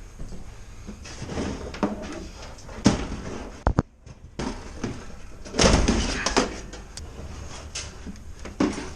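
Clunks, knocks and rattles of gear being handled and moved about, with door-like sliding and banging sounds; the loudest clatter comes a little past the middle.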